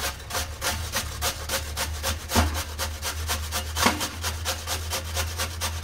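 Peeled white radish (mooli) rubbed back and forth on a small handheld stainless-steel grater: a fast, regular rasping of about five strokes a second.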